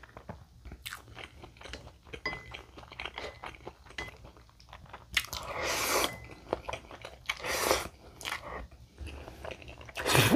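Chewing with many small wet clicks, broken by Jjapagetti noodles being slurped in noisy rushes: a long one about halfway through, a shorter one a couple of seconds later, and a short, loud one at the end.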